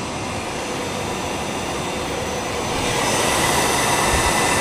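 Allis-Chalmers 15 HP three-phase electric motor running with no load at 60 Hz. It gives a steady hum and whine, and its freshly greased bearing sounds good. The sound gets louder about three seconds in.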